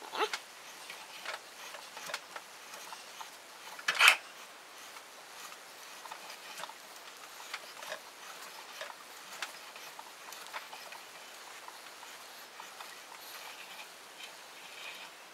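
Thread tap being turned by hand in a tap wrench into a cast aluminium block held in a vise: scattered light metallic clicks and scrapes, with a sharper knock about four seconds in.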